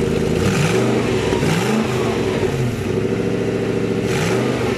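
Toyota 1UZ 4.0-litre V8 idling just after its first start following a rebuild, blipped up in revs three times and falling back to idle. A slight exhaust leak hisses at the muffler.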